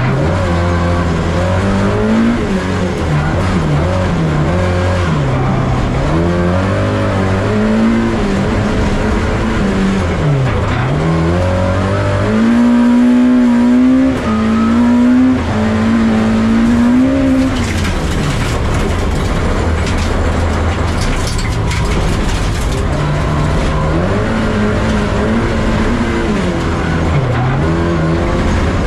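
Lexus IS200 rallycross car's engine heard from inside the cockpit, revving up and falling back repeatedly through gear changes and corners. Around the middle it holds a high, steady pitch for several seconds at full speed on the straight.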